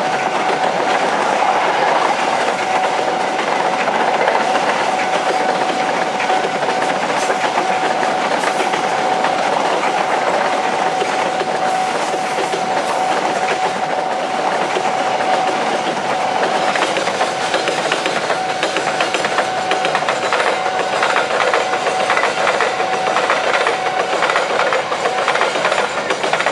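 A KRL electric commuter train passing close by, its wheels clacking over the rail joints in a steady run of clicks. A single steady tone sounds over it and stops about two seconds before the end.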